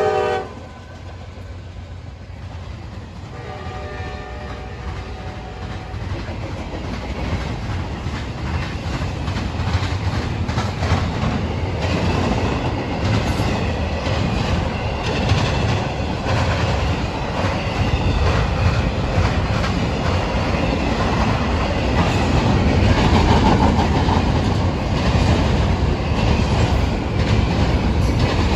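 CSX freight train passing at speed: a horn blast cuts off at the start and a fainter horn note sounds about four seconds in, then the rumble and clickety-clack of wheels over the rail grows steadily louder as the cars roll by.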